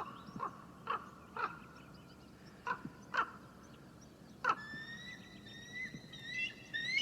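Common raven calling, a handful of short separate croaks spaced through the first few seconds. From the middle on, a bald eagle joins with a thin, high, whistled chatter of piping notes that step slightly upward.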